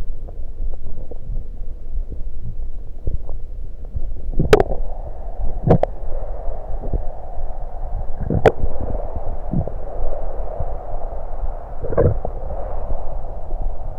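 Stomach sounds after drinking soda: a steady low rumble broken by four sharp gurgling pops, with a soft hiss coming in about four and a half seconds in.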